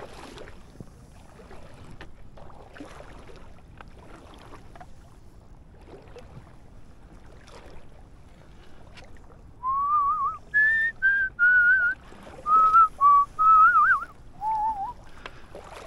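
Faint wind and water noise, then about ten seconds in, a person whistles a short tune of about ten brief, wavering notes lasting around five seconds.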